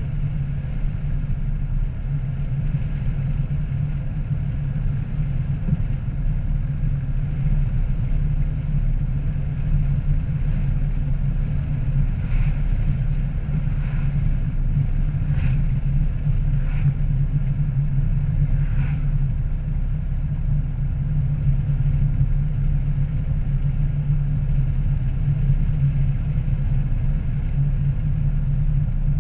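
Steady low road and engine rumble of a car cruising on a highway, picked up by a dash-mounted camera. A handful of short, sharp ticks come about halfway through.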